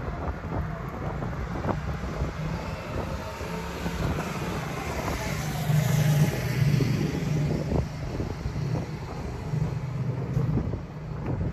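A vehicle passing by, loudest about six seconds in, over a steady outdoor rumble.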